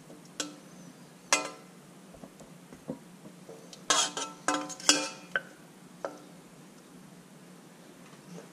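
A metal utensil clinking against a ceramic plate as food is served onto it: a few sharp clinks in the first second and a half, then a quick cluster of louder, briefly ringing clinks about four to five and a half seconds in.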